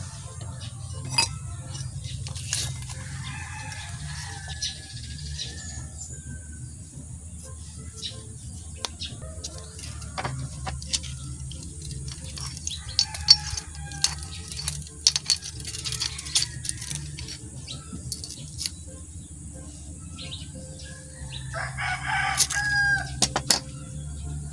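A rooster crowing about three times, the loudest crow near the end, over a steady low hum. Scattered sharp clicks and clinks of metal pieces being handled and set down.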